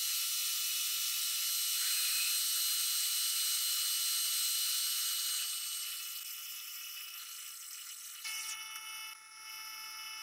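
Metal lathe drilling a hole with a 10.5 mm drill, sped up tenfold so it comes out as a high, hissy whine with steady tones. The sound thins about five and a half seconds in as the drill backs out, and drops again about eight seconds in as the spindle stops.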